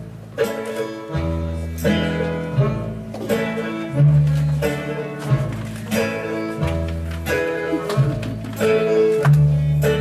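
Instrumental dance music with plucked string notes over a bass line, at a regular beat.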